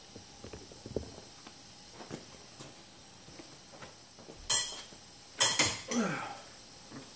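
Handling noise: light clicks and taps, then loud swishing and rustling of a nylon strap being pulled and shaken, about four and a half seconds in and again a second later.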